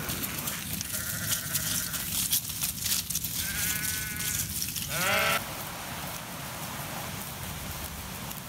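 Sheep bleating: three calls, a faint one about a second in, another just before four seconds, and a louder one about five seconds in, over a rustling background that carries on steadily afterwards.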